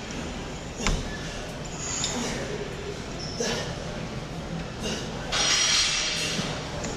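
Weight-room background with a single sharp clank of gym equipment about a second in, then a loud hissing breath lasting about a second, typical of a lifter exhaling through a hard rep.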